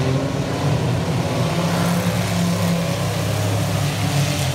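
Engines of a pack of junk-class stock cars racing around a dirt oval, running steadily together as one continuous drone.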